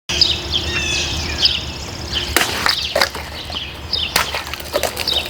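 Cold Steel Counter Point XL folding knife chopping into plastic bottles: four sharp cuts in the second half, over birds chirping.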